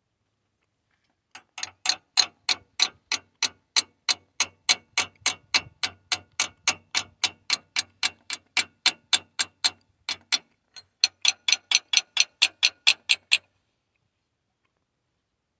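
Garlic seed drill's gear and ratchet mechanism clicking as its wheel is turned, an even run of sharp clicks about three a second, with a short break about ten seconds in before it picks up again and stops.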